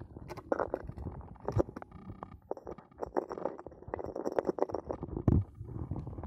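Muffled sloshing and gurgling of water heard through a phone's submerged microphone, with irregular short knocks and clicks throughout.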